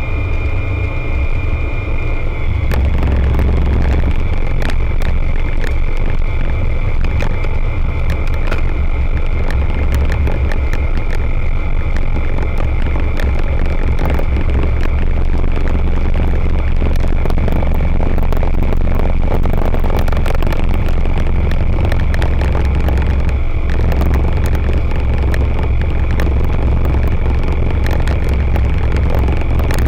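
Rotax 912 ULS flat-four engine and propeller of an Aeroprakt A22LS Foxbat ultralight droning steadily in flight, heard from inside the cockpit. It grows a little louder about two and a half seconds in.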